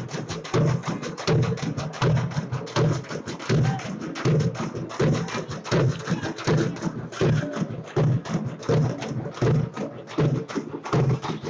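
Drums beaten in a steady, driving rhythm, with a heavy low stroke about every three-quarters of a second and quicker sharp strokes in between, over the noise of a crowd.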